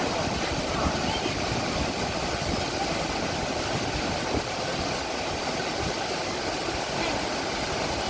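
A large waterfall in monsoon flood, a wide sheet of water plunging into its pool with a steady rushing roar.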